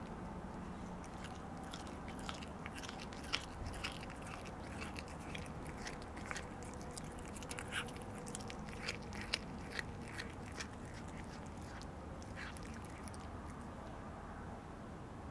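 A cat chewing food, a quick irregular run of small crisp clicks of its teeth that stops about three-quarters of the way through.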